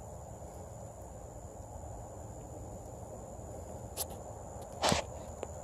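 Crickets chirring in a steady high-pitched drone, with a low steady rush underneath. Two sharp pops about four and five seconds in, the second the louder, are the wood fire in the pit crackling.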